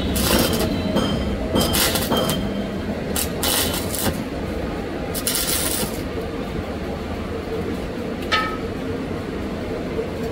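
Stick-welding arc on a thin-walled steel pipe, crackling and sizzling in about four short bursts as the electrode is struck and broken off again, then stopping. A single sharp tick follows near the end.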